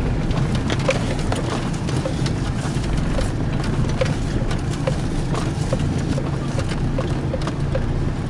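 Off-road vehicle driving slowly over a rough track, heard from inside the cabin: a steady low engine and road rumble with frequent irregular knocks and rattles as it bumps along.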